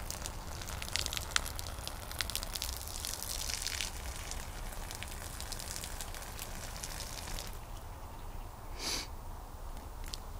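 Crackling clicks and crunches of ice and frost as a boot nudges and kicks a mop head frozen into a disc of ice on frosty concrete, busiest in the first four seconds, with one short scrape about nine seconds in.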